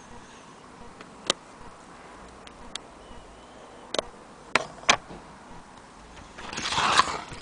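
Aluminium Blick Featherweight typewriter being worked by hand: a handful of sharp single clacks spaced irregularly, about a second apart, then a longer scraping rush that builds and ends in a clack near the end.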